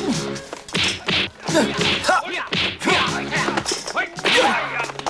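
Kung fu film fight sound effects: a rapid run of about eight punch and kick impacts with swishes. Background music plays throughout.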